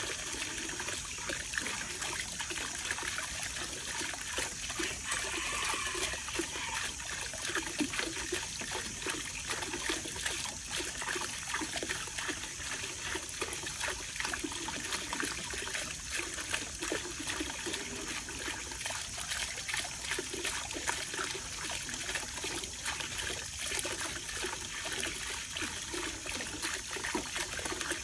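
Small aquarium fountain running: a jet of water falls from the planter above and splashes steadily into the pool below, with a continuous trickle.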